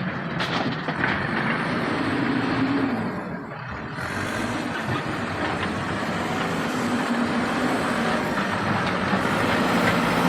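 Heavy diesel machinery engine running steadily, with a low hum that comes and goes and a short dip in loudness about a third of the way in.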